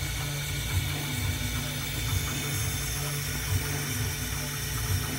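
Roland MDX-40 benchtop CNC mill cutting jeweler's wax: the spindle runs steadily with a fine conical bit milling a ring blank turned on the rotary fourth axis. A steady high whine over a low hum.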